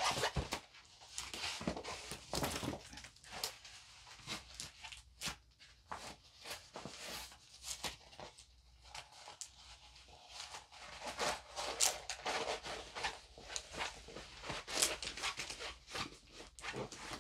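Diamond painting canvas and its release cover rustling and crackling in irregular scrapes as the canvas is handled and rolled backwards to flatten it.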